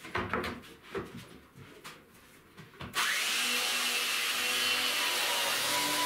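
Wooden knocks and rubbing as a long wooden strip is handled on a steel saw table. About halfway through, a handheld belt sander starts suddenly and runs steadily on plywood, a loud even noise with a faint whine.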